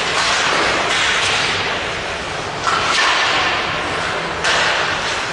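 Hockey skate blades scraping and carving on the ice in a series of hissy strokes, each starting suddenly and trailing off, with fresh scrapes about a second in, halfway through and past the four-second mark. A low steady hum runs underneath.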